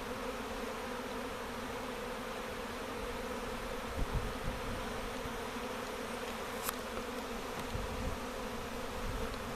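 A honey bee swarm in flight: a dense, steady buzzing of many bees in the air at once. A few brief low thumps come about four seconds in.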